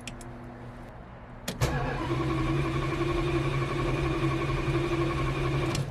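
A 1971 Plymouth Satellite's starter motor cranking the engine, which does not catch. A click comes about a second and a half in, then a steady cranking for about four seconds that cuts off abruptly.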